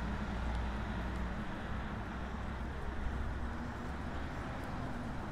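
City street traffic: a steady low rumble of road vehicles under a constant hiss of urban noise.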